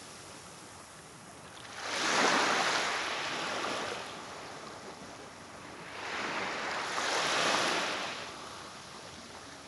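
Small waves breaking and washing up a sandy beach: two surges of hiss about four seconds apart, with a steady low wash between them.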